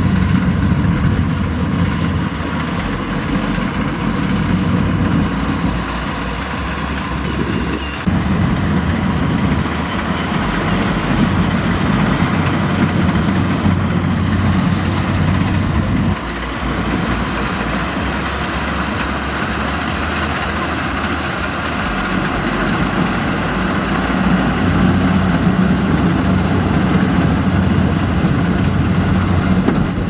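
Kubota DC70 combine harvester's diesel engine running steadily under load while it cuts and threshes rice, a continuous low drone with the clatter of the machine's working parts.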